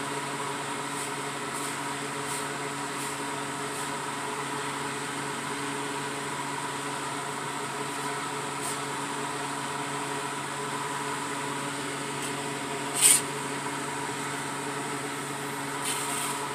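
Steady hum of an electric fan running, with an even rushing noise under it. A single sharp click about 13 seconds in, and a few faint ticks.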